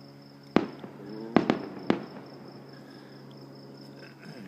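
Backyard fireworks going off: four sharp bangs in quick succession, the first about half a second in and the last about two seconds in, with some crackling between them. Crickets chirr steadily underneath.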